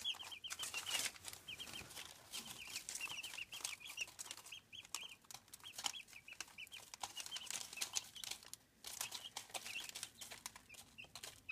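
Three-week-old chicks peeping softly in quick little runs, with light scratching and pecking on newspaper.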